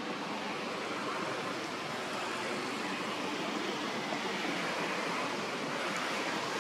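A steady rushing noise, even and without distinct events, growing slowly louder.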